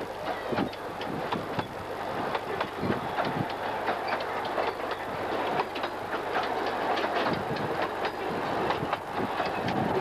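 Passenger carriages of the 15-inch-gauge Ravenglass and Eskdale miniature railway rolling past, a steady rumble of wheels on rail with many irregular clicks and clacks from the wheels over the track.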